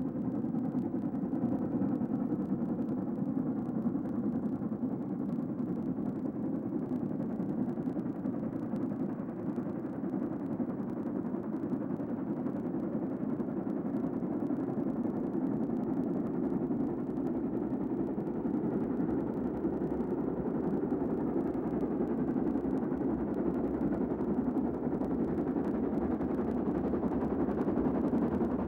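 Southern Railway King Arthur class 4-6-0 steam locomotive No. 777 working hard uphill with a train, its exhaust and the running of the train making a steady, dense noise that grows a little louder near the end as it comes close.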